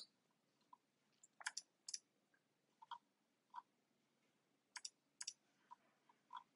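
Near silence with a few faint, scattered clicks, some coming in close pairs.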